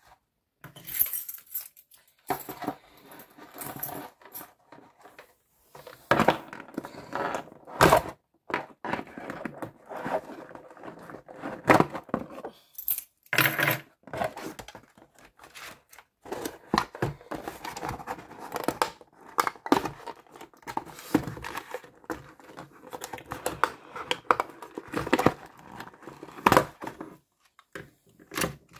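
Cardboard toy box being opened and the plastic Optimus Primal robot figure lifted out by hand: irregular rustling, tearing and scraping of cardboard and packaging, broken by sharp clicks and knocks of hard plastic.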